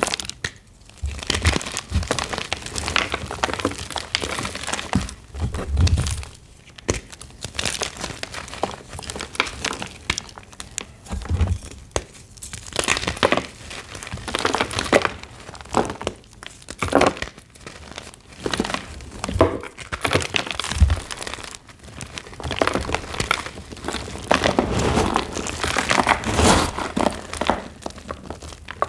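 Reformed gym chalk blocks being crushed and crumbled, a dense run of irregular crunches and crackles with a few louder cracks. The blocks are extra crunchy.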